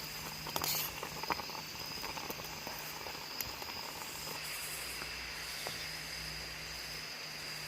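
Creek water running as a steady hiss, with a steady high insect drone over it and a few faint clicks in the first second or so.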